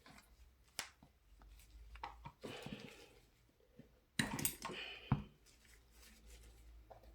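Small metal bicycle-hub parts being handled on a workbench: scattered light clicks and rustling, a brief scraping about two and a half seconds in, and a louder scrape and clack about four seconds in followed by a sharp click.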